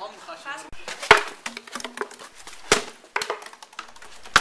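A few sharp knocks and thuds on paving stones, as a plastic cola bottle loaded for a Mentos geyser hits the ground and people scramble away. There are three loud knocks, about a second apart.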